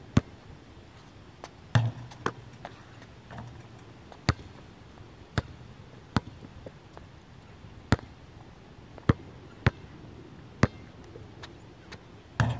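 Basketball bouncing on an outdoor court: sharp, irregular bounces about once a second, with heavier thuds about two seconds in and near the end.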